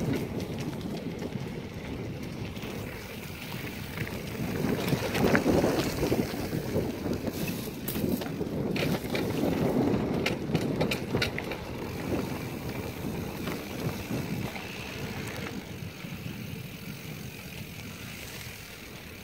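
Wind buffeting the microphone of a phone carried on a moving mountain bike, with tyre noise on a dirt trail. Sharp clicks and rattles from the bike over bumps come in the middle, and the rush eases toward the end.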